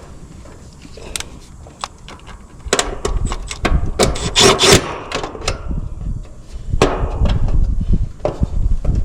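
Hands and tools working on the old capacitor mount inside an air-conditioner condensing unit: scraping, rubbing and sharp metal clicks. Heavier handling noise and a low rumble come in from about a third of the way in.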